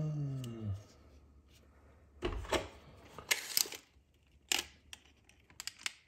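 A short falling hum from a voice at the start, then a Stanley steel tape measure's blade drawn out and set against a plastic outlet tester: a few scraping rattles and several sharp clicks.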